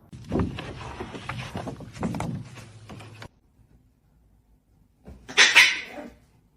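Pet animal sounds: a run of short sounds that cuts off suddenly after about three seconds, then after a quiet gap one loud call lasting about a second.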